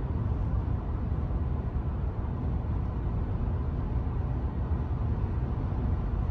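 Steady road and tyre rumble inside the cab of a Ford F-150 Lightning electric pickup cruising at about 55 mph, with no engine note.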